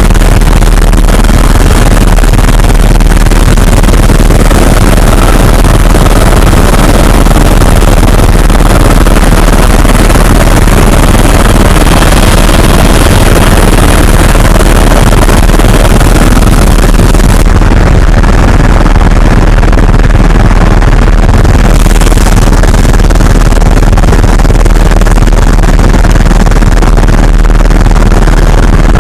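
Tour helicopter heard from inside the cabin: a loud, steady rotor and engine din with a deep low rumble, close to overloading the recording. The treble dips for a few seconds past the middle.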